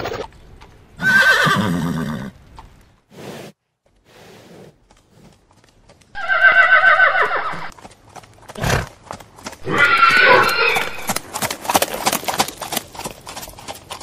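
Horse whinnying three times in long, wavering neighs, with a single thump between the second and third. A quick run of hoofbeats clip-clops near the end.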